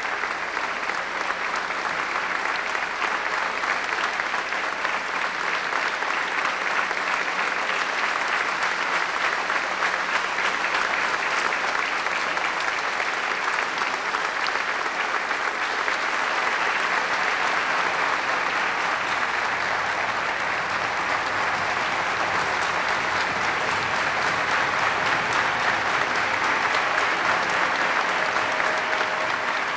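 Large audience applauding steadily and at length.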